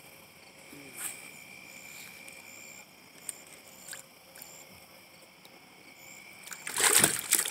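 Steady high-pitched chorus of crickets and other insects, with a few faint clicks. About seven seconds in, a brief loud burst of noise.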